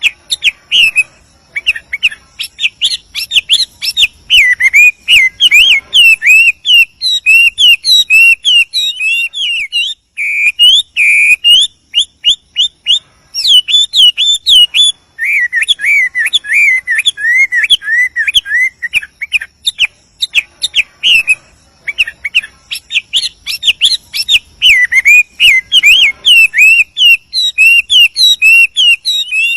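Chinese hwamei singing continuously: a long, varied run of rapid whistled notes and phrases, with a brief pause about ten seconds in. This is the full, rolling song of a male calling to a female.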